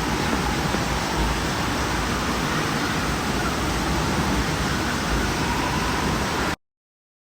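Steady rushing of water and the echoing din of an indoor waterpark, an even hiss with no distinct events, which cuts off dead about six and a half seconds in.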